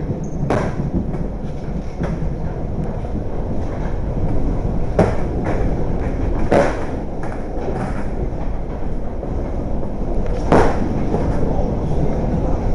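Steady rumble of a moving train heard from inside the carriage, with a few sharp knocks standing out.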